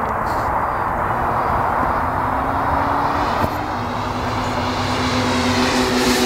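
Twin-engine radio-controlled ASM F7F Tigercat model plane flying overhead, its engines droning steadily and growing louder near the end as it comes closer.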